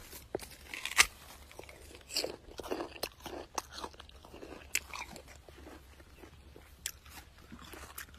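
Crisp bites into a firm fresh peach and crunchy chewing in several bursts, with a sharp snap about a second in.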